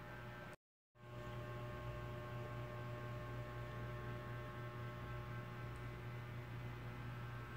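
Steady electrical hum with several thin, steady tones above it. It cuts out to dead silence for a moment just under a second in, then resumes unchanged.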